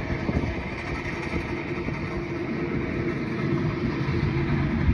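An engine running steadily at one pitch, a held hum over a low rumble.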